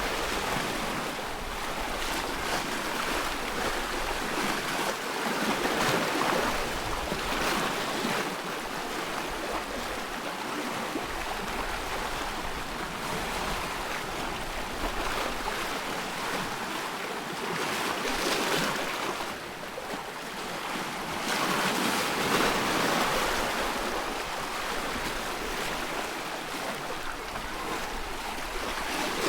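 Waves on a loch splashing and lapping, with wind: a steady rush of water noise that swells and eases now and then.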